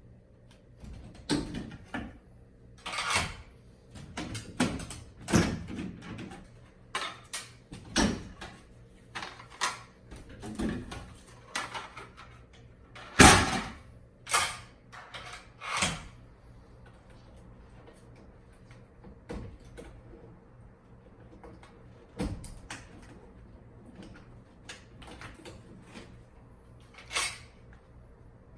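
Irregular knocks, clicks and scrapes of parts being handled and unclipped while a ceiling cassette air conditioner is taken apart, with a quieter pause partway through.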